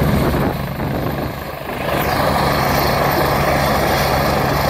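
Agusta A109 twin-turbine helicopter running on the ground with its main rotor turning, a steady low drone with turbine whine that grows a little louder about two seconds in.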